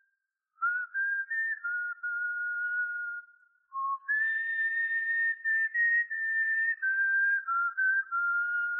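A whistled tune: one clear, pure note stepping up and down between pitches in short phrases, with a brief pause about three and a half seconds in.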